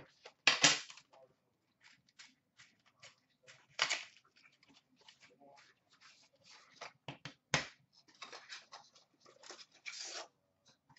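A blade slicing the seal on a cardboard trading-card box, then plastic wrapping crinkling and tearing and hard plastic card holders clicking as they are handled. It is a series of irregular sharp clicks and short rips, the loudest about half a second in.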